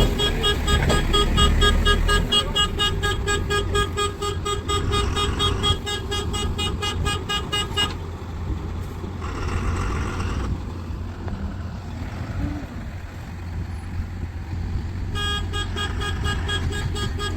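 A heavy diesel vehicle's rapidly pulsing electronic reversing horn over the low running of its engine. The beeping stops about eight seconds in and starts again near the end, and a short hiss comes about two seconds after it stops.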